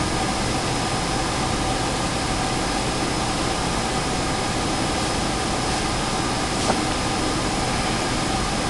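Steady mechanical room noise, an even hiss and hum like a running fan or ventilation, with a few faint steady tones in it and one light click about six and a half seconds in.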